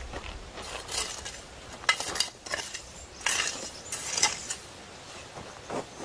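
Metal utensils clinking and scraping against cookware in irregular taps, with a few sharper clinks in the middle.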